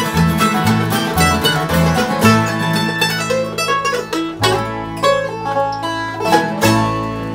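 Acoustic bluegrass band playing an instrumental: banjo, mandolin and acoustic guitars picking over upright bass and fiddle. About halfway through, the quick picking gives way to long held chords.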